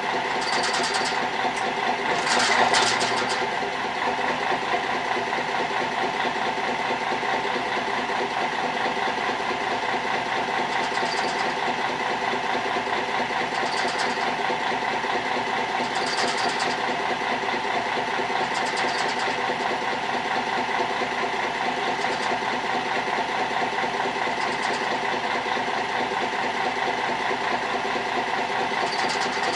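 Fishing boat's engine idling steadily, with a few brief sharp sounds over it.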